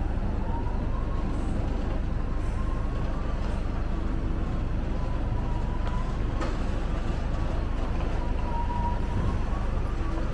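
Tractor running steadily, heard from inside the cab: a constant low rumble with a faint wavering whine over it.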